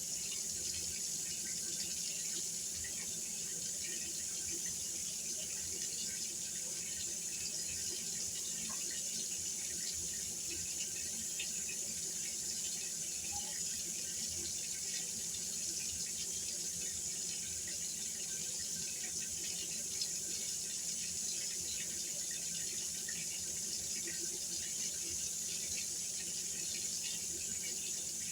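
Kitchen sink tap running steadily, water splashing into the sink.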